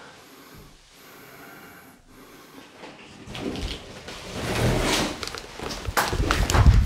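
Loud breath-like huffing that swells about three seconds in and comes in two heavy gusts, mixed with a few sharp knocks; it is presented as a ghost's breathing.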